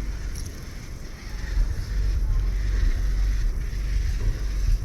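Wind buffeting the microphone: a low, fluctuating rumble that gets a little louder about a second and a half in.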